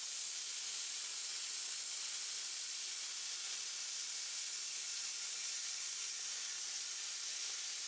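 Plasma cutter cutting 2 mm mild steel sheet freehand: a steady, even high-pitched hiss of the cutting arc and air jet.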